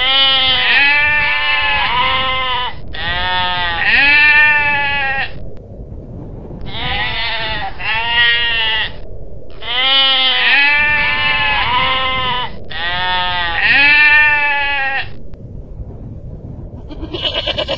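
Long-tailed goral bleating calls: five bouts of short bleats, each bleat rising then falling in pitch, with brief pauses between the bouts. The calling stops about fifteen seconds in.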